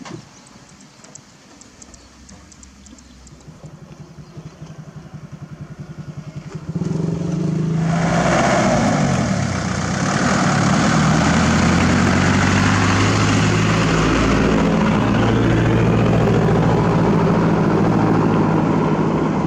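Diesel dump truck engine running close by: faint and slowly growing for the first six seconds or so, then much louder from about seven seconds in, staying loud and steady.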